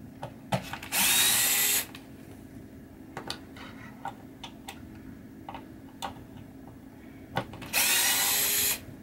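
Cordless power screwdriver running in two short bursts, about a second in and again near the end, backing out a screw that holds a pinball pop bumper body down. Small clicks of the bit and handling sound between the bursts.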